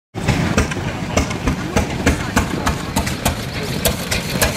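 Antique engine running steadily with a regular sharp knocking beat, about three knocks a second.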